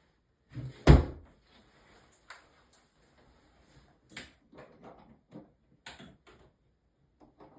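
Clicks and knocks of plastic shower-head parts being handled and fitted back together, with one loud knock about a second in and lighter clicks after it.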